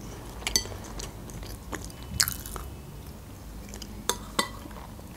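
Close-miked chewing of food, with scattered soft crunches and wet mouth clicks. A metal fork clinks against the ceramic soup bowl a couple of times about four seconds in.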